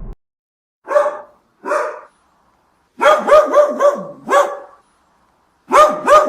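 A dog barking: two single barks, then a quick run of about five, then another run starting near the end.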